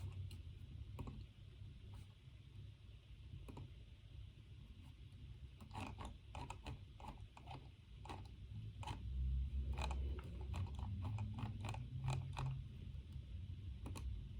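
Irregular light clicks and taps of someone working at a desk over a steady low room hum. The clicks bunch up about halfway through and again in the last few seconds.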